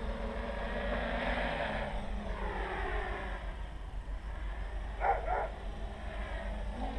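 Armattan CNC 355 quadcopter's electric motors and propellers whining, the pitch sliding up and down as the throttle changes, with a short louder double burst about five seconds in. A steady low rumble runs underneath.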